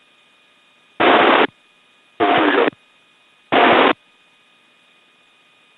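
An AH-64 Apache's 30 mm chain gun firing three short bursts, each about half a second long and a little over a second apart, heard through the helicopter's narrow-band cockpit intercom audio.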